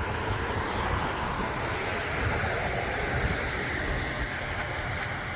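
Steady rush of blizzard wind and road traffic, with a low rumble of wind buffeting the microphone.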